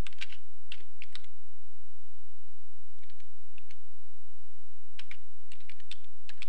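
Typing on a computer keyboard: short, irregular runs of key taps with pauses between, a few early on, a sparse few midway and a denser run near the end. A steady low hum sits underneath.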